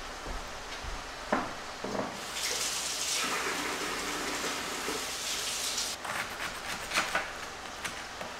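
A couple of light knocks, then a kitchen tap running steadily for about four seconds and shut off abruptly. A knife then chops on a wooden cutting board in quick, light taps.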